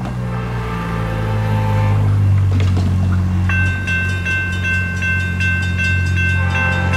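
Approaching Amtrak P42DC diesel locomotive, its deep engine rumble growing louder, with a distant horn chord sounding in the first couple of seconds and again near the end. About halfway through, a railroad crossing bell starts ringing in quick, even strokes.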